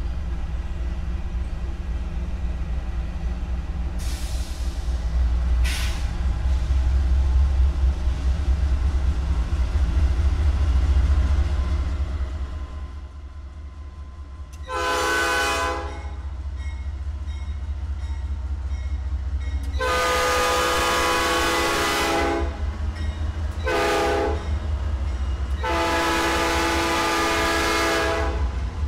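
Norfolk Southern diesel locomotives rumbling as they approach, then the lead unit's air horn sounds four blasts: medium, long, short, long. This is the grade-crossing signal as the train nears a road crossing.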